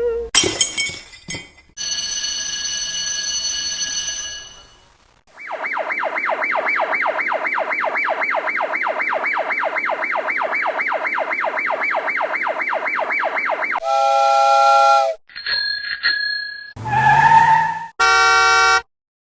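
A run of separate short sound effects: bell-like dings at the start, then a held ringing tone. Next comes a fast wavering siren-like warble, about four cycles a second, lasting about eight seconds, followed by a few brief pitched effects near the end.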